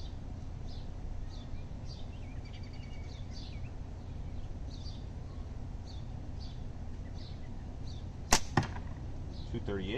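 A slingshot shot with an 11 mm steel ball from flat bands, about eight seconds in: a sharp snap as the bands are released, then a fainter smack a moment later as the ball hits.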